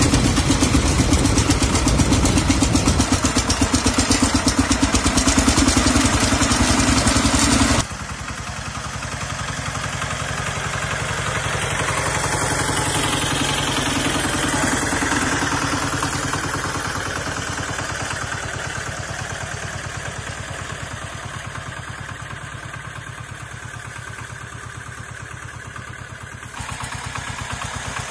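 Kentavr MB 1010DE-6 walk-behind tractor's single-cylinder diesel engine running steadily while pulling a loaded trailer. It is loud and close for the first eight seconds, then heard from further off, growing louder as the machine drives past and fading as it moves away.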